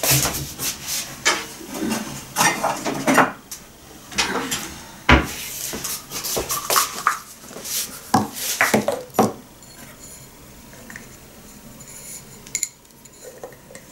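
Kitchenware being handled: a run of clinks, clicks and knocks of dishes and utensils for about nine seconds, then only faint scattered sounds.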